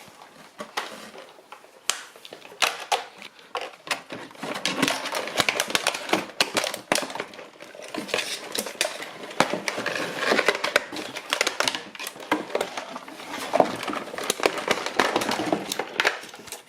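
A doll's box packaging being handled and pulled apart to free the toy: a steady stream of irregular clicks, crinkles and rustles, fainter for the first few seconds and busier after that.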